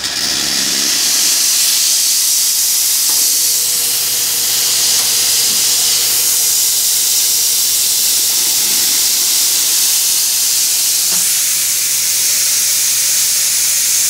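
Loud, steady hiss of steam blowing from the wands of a La Cimbali two-group espresso machine, opened together to purge and warm them up before use. A faint low hum joins about three seconds in.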